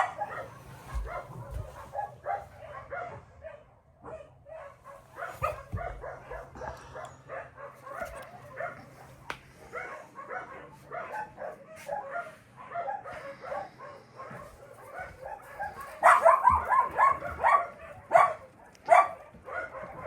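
Dogs barking, many overlapping barks at once, with a louder spell of barking about sixteen seconds in and two more loud barks near the end.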